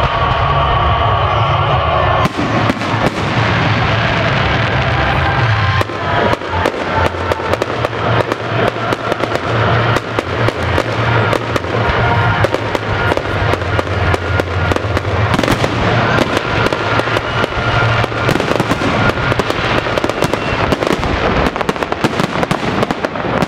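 Fireworks salute crackling: a dense, rapid, continuous spray of small pops and cracks from many bursting shells, thickening about two seconds in. A steady low drone runs underneath.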